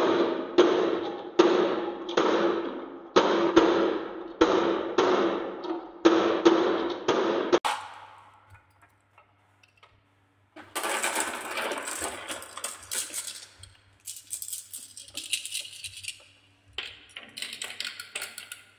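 Glass marbles dropping one after another from a wooden track into a plastic toy dump truck bed: a sharp clack about every second, each fading out. After a short quiet gap, a run of glass marbles rattles and clicks as it rolls down a slotted wooden ramp.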